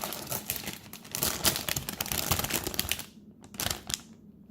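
Crinkling of plastic packaging as a model kit's bagged parts are handled, dense crackling for about three seconds, then a few separate crackles near the end.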